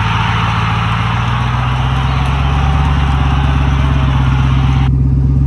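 Pickup truck's V8 engine running steadily at low crawling speed. A steady hiss sits over it and cuts off suddenly near the end.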